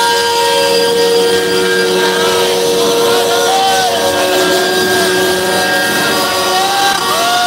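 Several truck air horns blaring at once in long, overlapping steady notes of different pitches, some cutting in and out, with crowd voices underneath.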